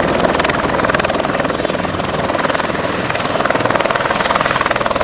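USMC MV-22B Osprey tiltrotor with its proprotors turning in helicopter mode. The blades give a fast, steady chop over the engines' noise.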